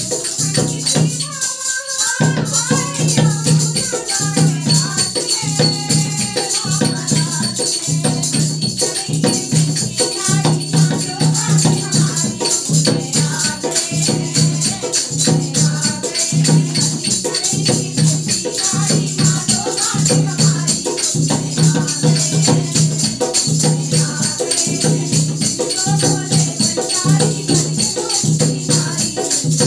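Women's group singing a Hindi devotional bhajan in unison, accompanied by a dholak beating a steady low stroke about once a second and the jingling of small hand cymbals (manjira) with hand clapping. The music drops out briefly about two seconds in, then carries on.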